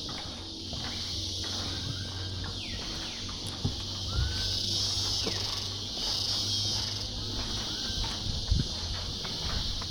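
Tropical rainforest ambience: a steady, high-pitched insect chorus that swells twice in the middle, with a few short bird chirps and falling whistles, and a few soft low thumps.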